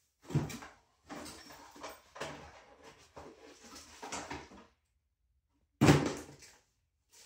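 Handling noise from unboxing an electric scooter: a sharp knock about half a second in, then scraping and rustling for a few seconds, and a second, louder knock near the end.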